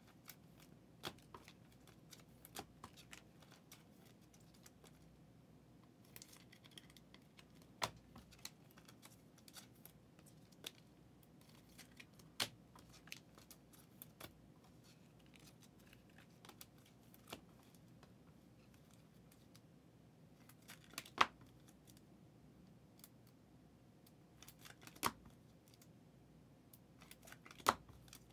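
Trading-card packs and cards being handled on a table: faint, scattered clicks and snaps as packs are opened and cards sorted, with a few sharper clicks in the second half.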